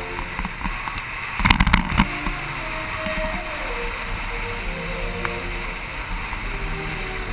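Motorcycle engine running steadily at low road speed, heard from on board with wind on the microphone. A short run of sharp knocks comes about one and a half seconds in.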